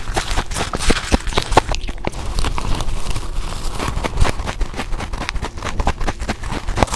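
A person biting and chewing ice close to the microphone: a dense, irregular run of sharp crunches and crackles.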